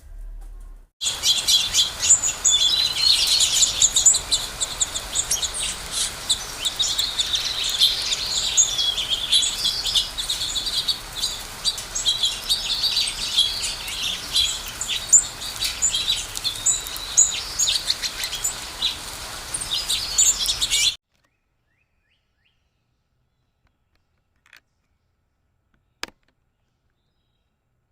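Dense chorus of many small birds chirping and trilling together. It starts about a second in and cuts off abruptly about three quarters of the way through, leaving near silence with two faint clicks.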